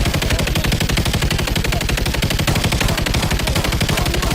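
Sustained automatic gunfire: rapid shots packed closely together in an unbroken stream, with several weapons firing at once.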